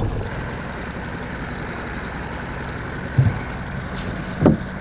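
Boat engine idling steadily, a low even hum, with two brief louder low sounds about three and four and a half seconds in.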